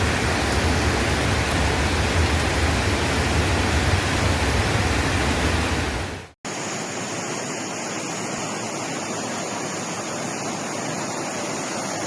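Rushing floodwater, a loud steady noise with a heavy low rumble. About six seconds in it cuts off abruptly to a second, quieter recording of steadily rushing water.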